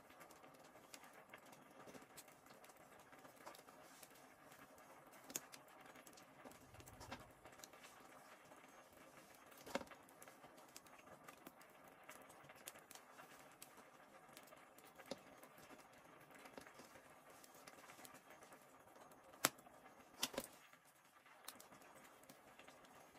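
Near silence with scattered faint clicks and taps from hands working a bamboo skewer and string against a metal bowl; the sharpest click comes about ten seconds in, and two more come close together near the end.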